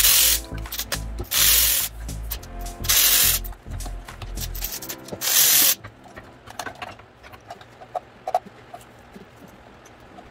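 Cordless electric ratchet running in four short whirring bursts, unscrewing the old spark plugs, followed by light clicks and taps of handling.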